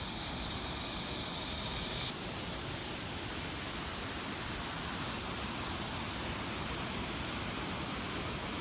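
Steady rushing of a waterfall, an even wash of noise with no rhythm; a brighter hiss on top drops away abruptly about two seconds in.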